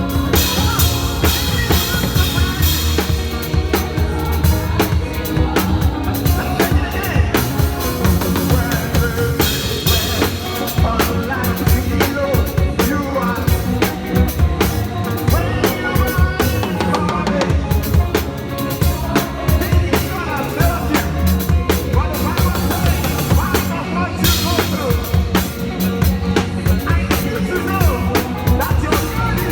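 Live praise music led by a drum kit played busily: dense kick-drum, snare and rimshot strokes over sustained low instrumental tones.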